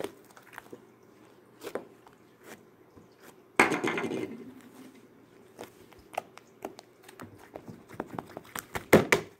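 Pink homemade slime being kneaded and pressed flat by hand on a table, giving scattered wet clicks and pops. A louder squelch comes about three and a half seconds in, and a quick run of pops near the end.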